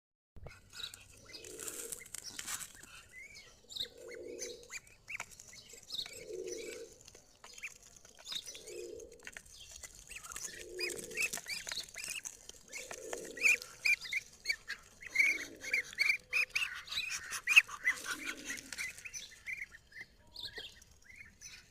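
Birds at feeding time: a low call repeated about every two seconds, with many short high chirps, clicks and wing flutters that grow busier through the second half.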